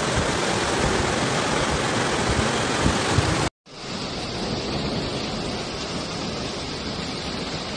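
Fast-flowing floodwater rushing through a street, a dense steady noise. It cuts out abruptly about three and a half seconds in and comes back quieter.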